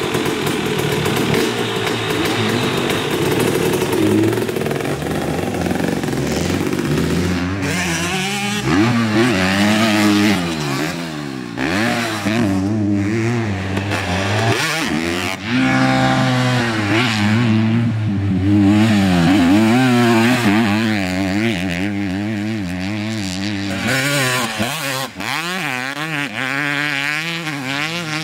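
250 two-stroke dirt bike engine being ridden hard: fairly steady for the first several seconds, then revving up and dropping back over and over as the rider works the throttle and gears.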